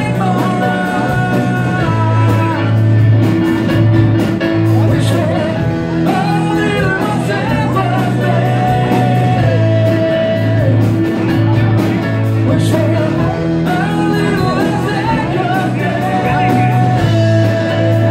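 Live band playing: a singer's voice with long held notes over electric guitar, bass guitar, keyboard and drums.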